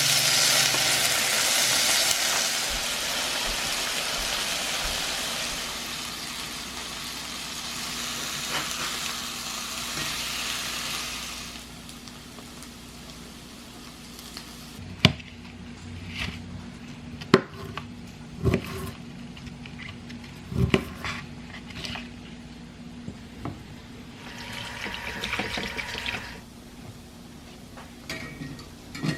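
Kitchen sounds: a steady hiss for about the first eleven seconds, then scattered clinks and knocks of utensils and dishes over a faint low hum, with a short hiss again near the end.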